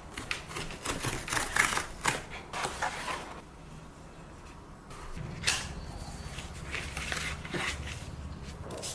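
Cardboard product packaging being handled and opened: irregular rustling and scraping with sharp clicks, busiest in the first three seconds, with one sharp click about five and a half seconds in.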